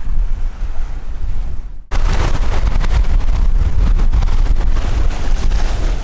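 Wind buffeting the microphone aboard a sailboat under sail: a steady low rumble that drops out briefly about two seconds in, then returns louder and hissier.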